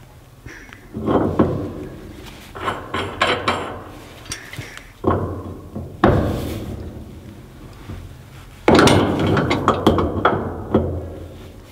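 Wrench clinking and knocking against the threaded steel leg of a Dominion & Grimm maple evaporator as the leg is turned to level the evaporator. The metal clanks come in four bursts of sharp knocks.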